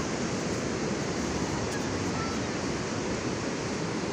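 Sea surf washing steadily, an even rushing noise.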